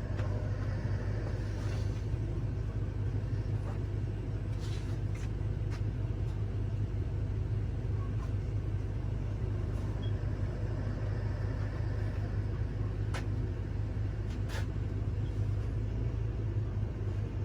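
A steady low mechanical drone, with a few short sharp clicks from handling small parts.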